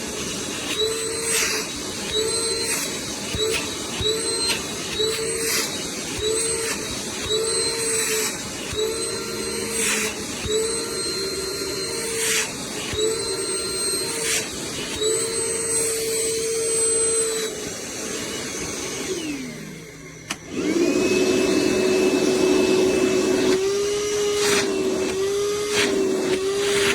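Battery-powered wet-dry shop vacuum running, its motor pitch dipping and recovering about once a second as the nozzle is blocked and freed while it sucks things up. Near the end it winds down and stops, then a vacuum motor starts again at a slightly lower pitch and runs on with the same dips.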